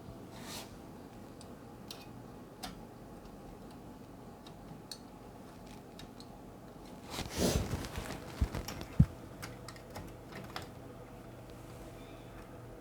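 Sparse light clicks from handling plastic printer parts and cable connectors, with a short burst of rustling and a few sharper clicks about seven to nine seconds in.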